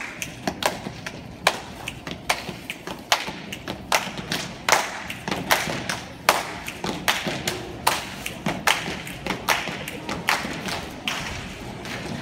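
Step team stepping: a quick, uneven rhythm of sharp stomps, claps and hand slaps on the body, several a second, ringing in a large hall.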